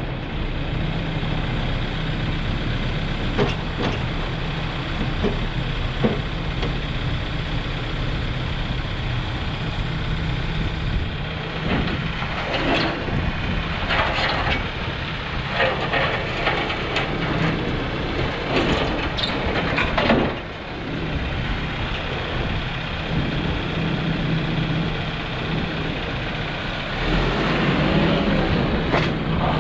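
Case 590SN backhoe's diesel engine running steadily. Several short hissy bursts come over it in the middle.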